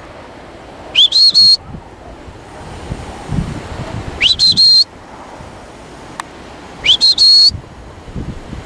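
Sheepdog handler's whistle commands to a working sheepdog: three short, high whistles about three seconds apart, each sliding quickly up and then holding one pitch, with a brief break or two inside each.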